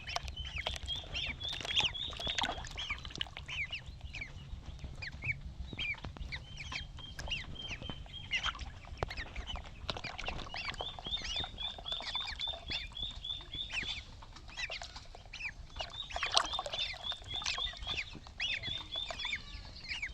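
Ducklings peeping: many short high chirps, several times breaking into rapid even runs of peeps, over a low steady background hum.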